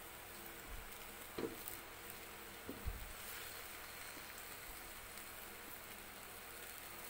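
Chop suey sauce boiling in a wok, a faint steady bubbling hiss. A spatula stirring the vegetables knocks against the wok twice, about one and a half and three seconds in.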